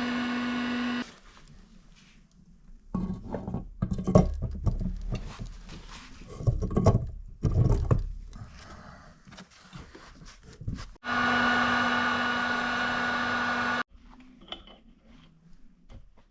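A small electric power tool runs with a steady whine, stops about a second in, and runs again for about three seconds near the end. In between come irregular knocks and scrapes of hard parts being handled.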